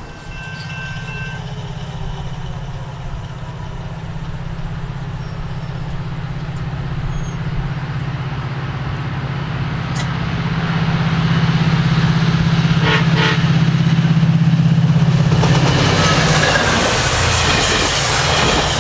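SunRail commuter train passing: the diesel locomotive's engine drones steadily and grows louder as it approaches. Near the end the bilevel coaches roll by with a rushing rail noise.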